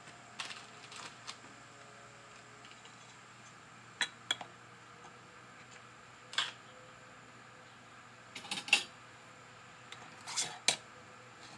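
Metal canning lid and screw band being put on a filled glass canning jar: a handful of short, separate clinks and taps of metal on glass, the loudest near the end as the band is turned on.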